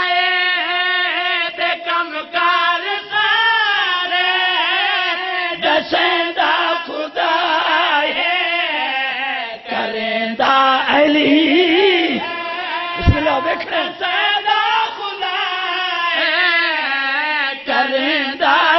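Several male voices chanting a devotional verse (sher) in a sung, melodic recitation with long wavering held notes. There is a single thump about two-thirds of the way through.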